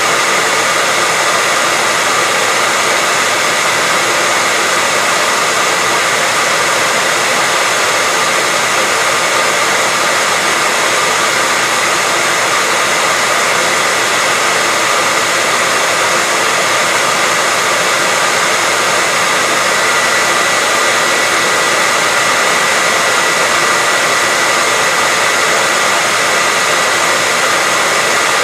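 Hair dryer running continuously: a steady, loud airflow hiss with a constant whine from the motor and fan.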